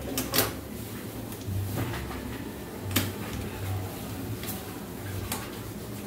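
Plastic casing of a portable air conditioner being handled and fitted back together: scattered light clicks and knocks, with sharper snaps about half a second in, at three seconds and just past five seconds.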